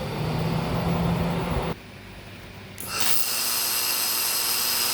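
Handheld laser welding gun firing in two runs: a noisy hum that cuts off suddenly just under two seconds in, then after a short gap a steady high-pitched whine with hiss.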